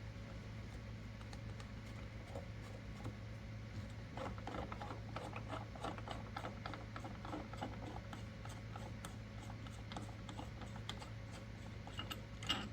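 Small metal parts being handled by hand: irregular light clicks and rattles, busiest from about four seconds in, as the press's swage and priming rods and their nuts are handled, with a sharper click near the end. A faint steady low hum lies underneath.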